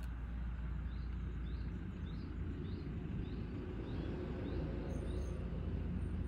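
Outdoor ambience: a steady low rumble like distant traffic, with a small bird repeating a short, high, rising chirp about every half second from about a second in to about five seconds.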